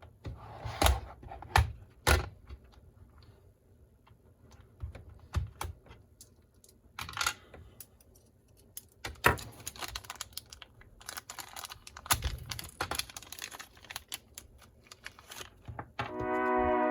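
Irregular clicks, taps and light rattles of small plastic and metal parts being handled as a new motor is fitted into an Axial SCX24 mini RC crawler. Background music comes in near the end.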